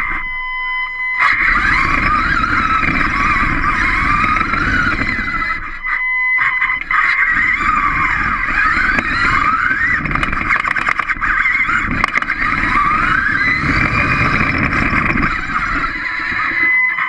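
Small robot's electric drive motors whining, the pitch gliding up and down as it speeds up and slows, over a rumble of its wheels rolling on a hard floor. The drive stops briefly near the start and again about six seconds in, leaving only a steady high tone.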